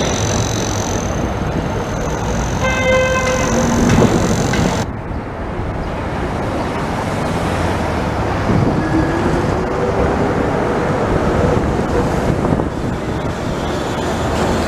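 Downtown street traffic with a TTC CLRV streetcar passing, and a horn honking once briefly about three seconds in. The sound changes abruptly about five seconds in. Later a whine rises in pitch and holds for a few seconds as a streetcar moves through the intersection.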